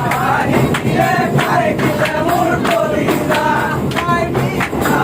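Music with several voices singing together over a steady percussive beat.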